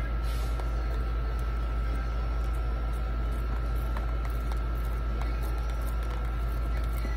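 Knife blade scraping the spines off a prickly pear cactus pad (nopal) in repeated light strokes, heard as scattered faint scrapes and clicks. A steady low hum with a thin high whine runs underneath and is the loudest sound.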